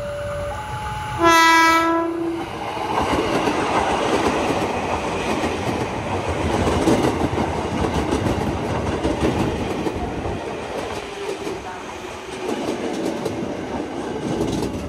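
A KRL Commuterline electric commuter train gives one short horn blast about a second in, then passes close by with the rumble and clickety-clack of its wheels on the rails. A level-crossing warning alarm alternates between two tones at the start and comes back near the end.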